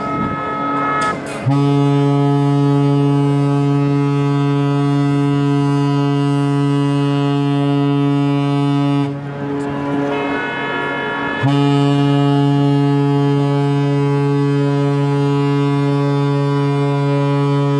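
Cruise ship Mein Schiff 2's horn sounding two long, deep blasts as it leaves port: the first from about a second and a half in, lasting some seven seconds, then after a gap of about two seconds a second blast that runs until near the end.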